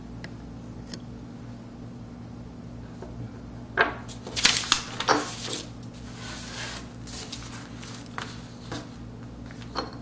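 Items being handled and set down on a wooden tabletop, with a printing pad slid into place: a cluster of knocks and scrapes about four seconds in, then a few light taps, over a steady low hum.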